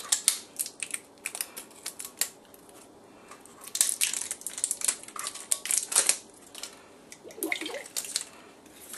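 Plastic shrink-wrap seal being peeled and torn off the lid of a glass sauce jar, a run of irregular sharp crinkles and crackles.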